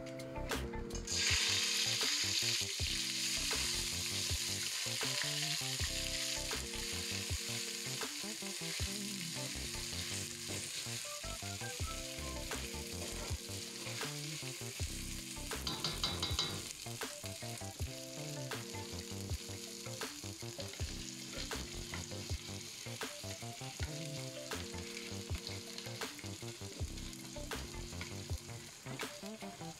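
Freshly rinsed rice hitting hot oil in an enamel pot: a loud sizzle breaks out about a second in, then settles into a steady frying sizzle as the rice is spread through the oil.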